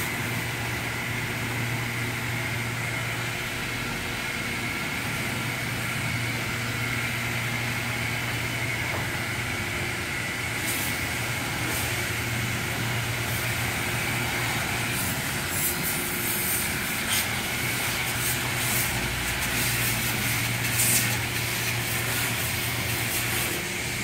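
High-pressure water spray from a self-serve car wash wand, hissing steadily and spattering on a car's hood and grille over a steady low hum, with sharper crackling spatters in the second half.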